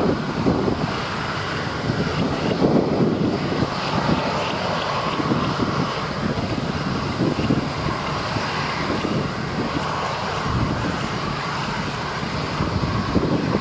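Boeing 787 airliner taxiing slowly, its two jet engines running at a steady idle hum with a faint whine above it.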